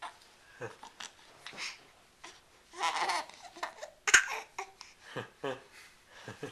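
Three-month-old baby cooing and babbling in short bursts, the longest and loudest a little under three seconds in. A sharp knock sounds about four seconds in.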